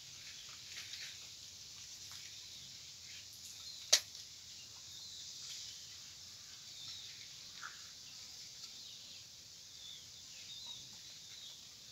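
Quiet outdoor background with a steady hiss, faint bird chirps now and then, and one sharp click about four seconds in.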